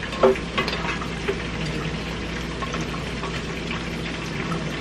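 Food sizzling steadily in a pot on the stove. A few light knocks in the first second or so, from a silicone spatula scraping a glass bowl into the pot.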